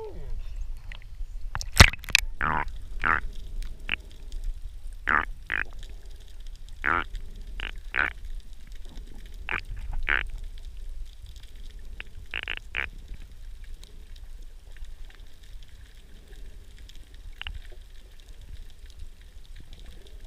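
Underwater sound through a camera's waterproof housing: a sharp knock about two seconds in, then scattered short gurgling pops of bubbles and water movement over a low rumble, thinning out in the last few seconds.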